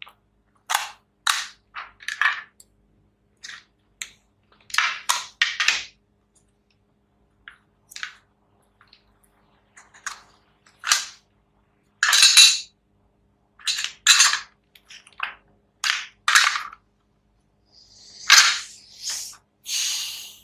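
Plastic case of a power-supply adapter being pried and pulled apart by hand: irregular sharp cracks and clicks as the plastic shell comes away from the metal-shielded board, with a scraping rasp near the end.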